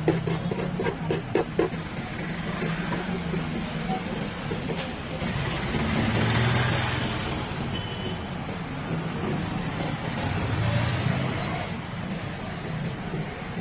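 Road traffic running past, with two vehicles swelling by about six and eleven seconds in. A run of quick light knocks comes in the first couple of seconds.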